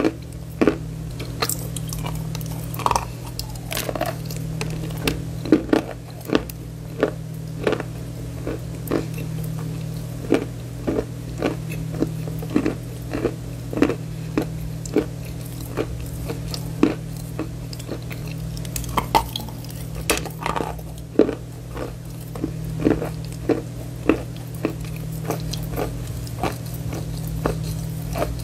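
A person chewing a mouthful of chalk close to the microphone: crisp, regular chewing clicks at about two a second, over a steady low hum.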